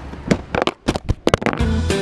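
Background music starting up: a run of sharp percussive hits in the first second and a half, then a guitar-led country-style tune with a bass line.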